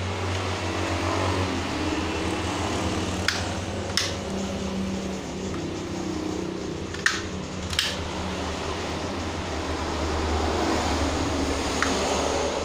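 Sharp plastic clicks as the housing parts of a Honda Mobilio power-window master switch are snapped back together by hand, about five clicks, mostly in pairs, over a steady background hum.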